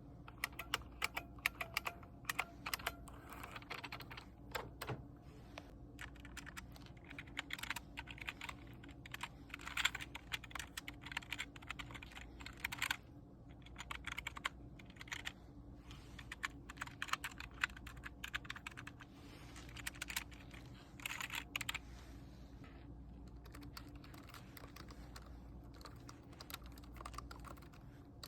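Typing on a computer keyboard: fast keystroke clicks in quick runs, broken by short pauses.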